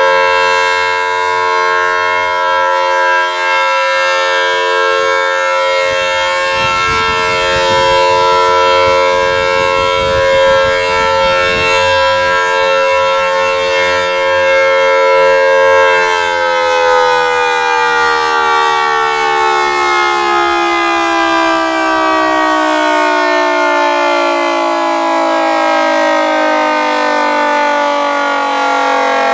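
Federal Signal outdoor warning sirens sounding a steady tone for a severe thunderstorm warning, then winding down, their pitch falling slowly from about halfway as they shut off.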